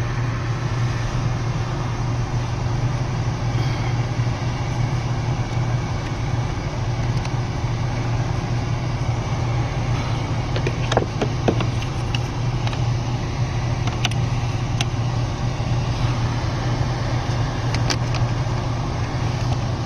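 Car's heating and air-conditioning blower fan running on a high setting with the engine idling: a steady rushing air noise over a low hum. A few short plastic clicks and taps about halfway through, and once or twice later, as the cabin air filter is fitted into its housing.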